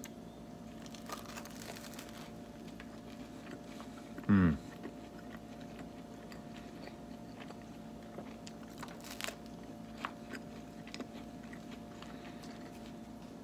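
A person chewing and biting into a toasted hoagie sandwich, with scattered small crunches of the crusty roll over a faint steady hum. About four seconds in comes a short sound from the eater's voice that falls in pitch, the loudest moment.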